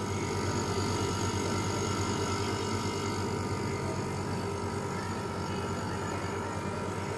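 Daikin split AC outdoor unit running just after switch-on, its compressor and condenser fan making a steady hum with a faint, constant whine over it.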